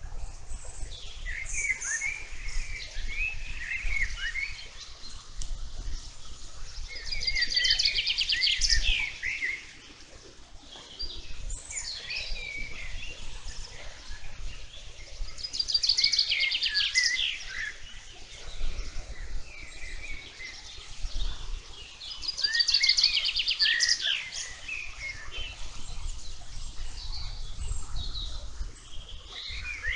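Wild songbirds singing: one bird repeats a loud, fast trilled song phrase about every seven to eight seconds, three times, with other birds' chirps and short phrases between.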